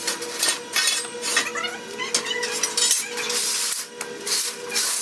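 Pieces of metal stock clanking and clinking against each other as they are shifted and slid across the floor, in quick repeated knocks.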